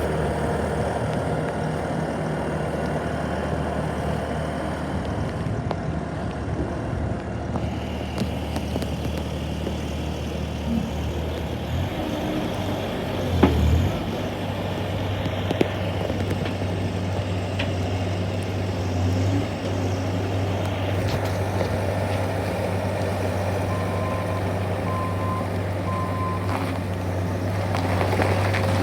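Bobcat skid-steer loader's engine running steadily; about halfway through its pitch drops briefly and picks up again, with a short sharp knock.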